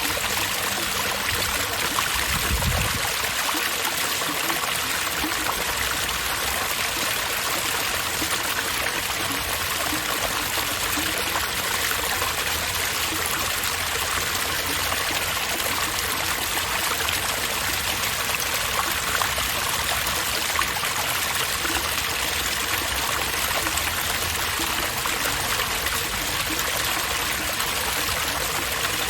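Running water from an outdoor water fixture, a steady splashing flow. A brief low rumble comes about two to three seconds in.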